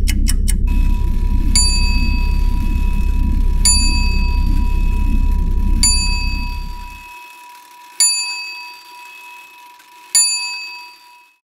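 Soundtrack ending with a high bell struck five times, about two seconds apart, each strike ringing out and decaying. Under the first strikes a low drone fades away, and a quick even ticking stops in the first second.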